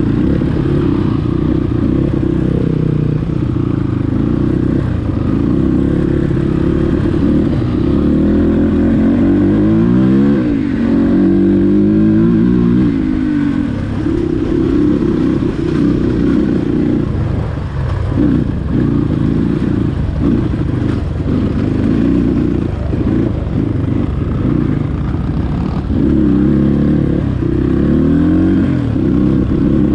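Dirt bike engine running under load on a rough trail, its pitch rising and falling as the throttle is opened and closed. It revs up and down about ten seconds in and again near the end. In the middle stretch the throttle is blipped on and off several times.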